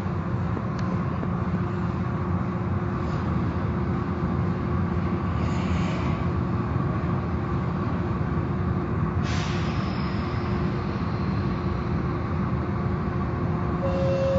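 Car wash machinery running with a steady rumbling noise. A short hiss comes about five seconds in and another about nine seconds in.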